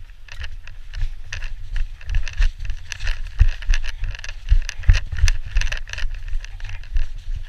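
Body-worn action camera jostled as the wearer runs across grass: footfalls, rattling gear and rumble from handling and wind on the microphone, with heavy thumps about three and a half and five seconds in.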